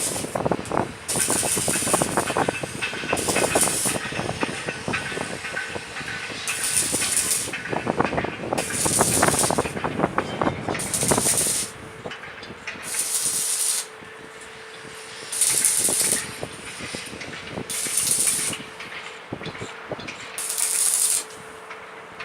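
Electric arc welding on a combine's grain-tank auger: crackling with repeated bursts of hiss about a second long. From about halfway on a steady hum runs under it.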